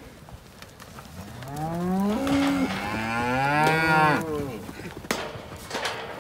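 Cattle mooing: one long bawl that rises in pitch, breaks briefly, then climbs again and falls away, from about a second in until past the middle. Two sharp knocks follow near the end.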